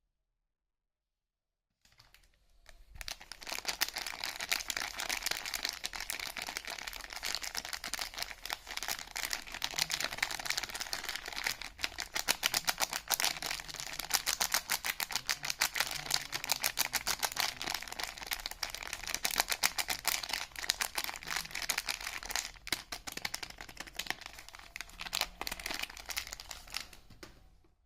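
Soap packaging being unwrapped by hand: a dense, irregular crinkling and crackling of the wrapper with some tearing. It starts about two seconds in and stops just before the end.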